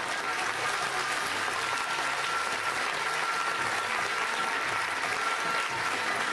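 Audience clapping, a dense patter of many hands, with music faint underneath.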